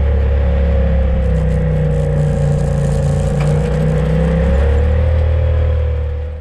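UTV engine and drivetrain running at a steady speed under way, a deep rumble with a steady whine over it; the sound fades out near the end.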